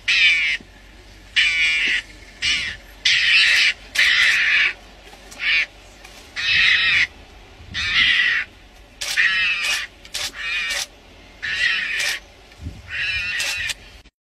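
A mongoose giving harsh, raspy calls over and over, about one a second, as a defensive threat at lionesses close by.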